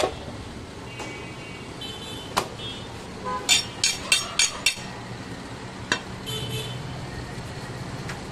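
Sharp chops of a large butcher's knife striking meat on a wooden chopping block: a few single blows, with a quick run of about six near the middle. Steady traffic noise and a few short car-horn toots run under them.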